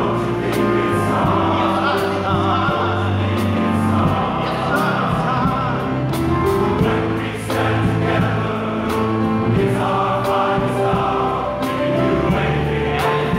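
Large men's chorus singing sustained chords over an accompaniment with a steady beat and a deep bass line.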